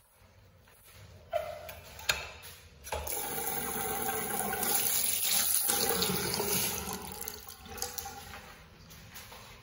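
A restroom fixture's flush: a rush of water that starts a few seconds in, builds, then tapers off over several seconds. A couple of sharp clicks come just before it.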